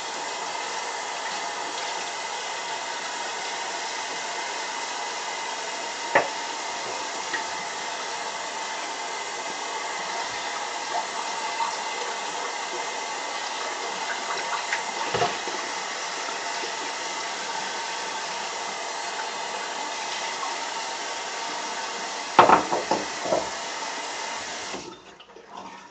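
Bathroom sink tap running steadily, with a sharp knock about six seconds in and a short clatter of knocks near the end; the water is shut off just before the end.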